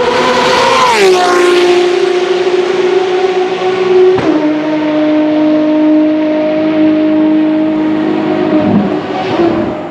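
Ferrari FXX-K's 6.3-litre V12 running hard at high revs. Its pitch glides down about a second in, then drops in a sudden step with a sharp crack about four seconds in. It holds a steady high note and fades near the end.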